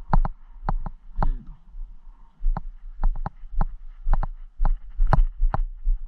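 Footsteps of a hiker walking downhill on a dirt and grass path: sharp steps roughly two a second, uneven in spacing, over a steady low rumble. A brief voice sound comes about a second in.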